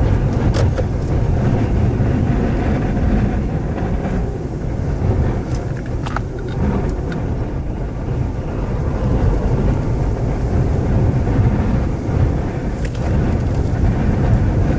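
Loud, steady low rumble of strong wind buffeting a storm-chasing vehicle close to a tornado, mixed with road noise, with scattered sharp clicks and knocks.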